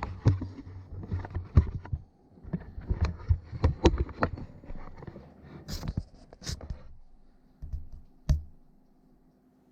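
Knocks and clunks of a Holley Hi-Ram intake manifold being worked back and forth onto a small-block Ford's cylinder heads, metal catching against metal as it hangs up on the lip of the head. Rapid knocks for about seven seconds, then quieter, with one sharp knock near the end.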